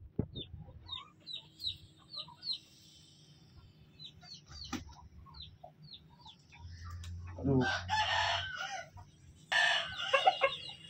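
A rooster crows once, about seven and a half seconds in, over a run of short, high peeps repeating a couple of times a second. A brief noisy burst follows about two seconds later.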